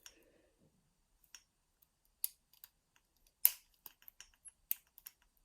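Light, irregular metallic clicks and ticks of a lever-lock pick working the levers of a six-lever padlock, with a few sharper clicks among them.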